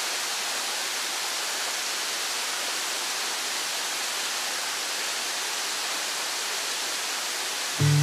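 Waterfall rushing as a steady, even roar of falling water. Acoustic guitar music cuts in at the very end.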